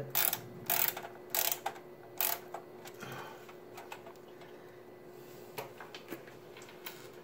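Screwdriver turning small motherboard screws into the case, with four sharp clicks spaced roughly half a second apart in the first two and a half seconds, then fainter scattered ticks.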